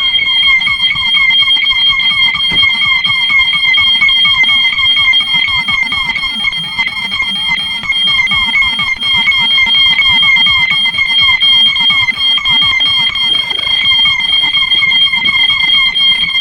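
Several fire alarm sounders going off at the same time, very loud. A steady high-pitched tone is layered over a fast-warbling tone and a lower tone that sweeps over and over, a few times a second.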